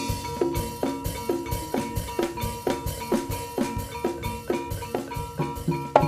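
A jaranan ensemble's live music: drums beating a steady rhythm of about three strokes a second, each stroke dropping in pitch, over a sustained high tone. The strokes grow louder and sharper near the end.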